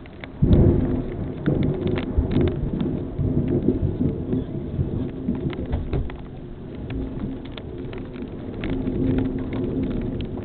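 A thunderclap breaks sharply about half a second in and rolls on as a low rumble for several seconds, swelling again near the end, over steady rain with scattered sharp ticks of drops striking close by.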